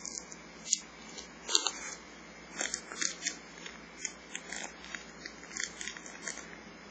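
Plastic wrapper of a noshi-ume plum jelly candy crinkling as it is handled, in irregular sharp crackles with a few louder snaps.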